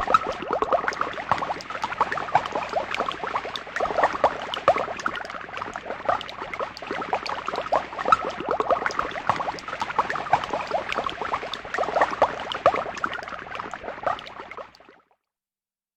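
Witch's-brew sound effect: a thick liquid bubbling and popping in dense, irregular bursts, fading out near the end.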